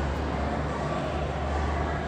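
City street ambience: a steady low rumble with an even hiss of distant traffic.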